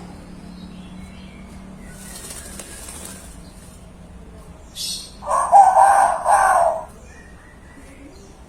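Young hill myna mimicking a rooster's crow: one crow about two seconds long, in three parts, in the second half.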